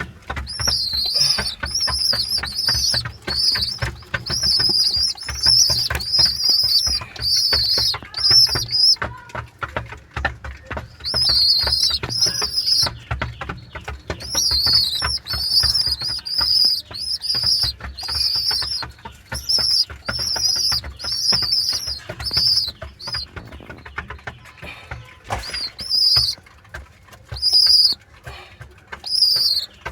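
Pigeon squabs squeaking: a long run of high, thin, wavering squeaks, about two a second. The squeaks pause briefly around ten seconds in and again around twenty-four seconds, over continual soft clicking and rustling.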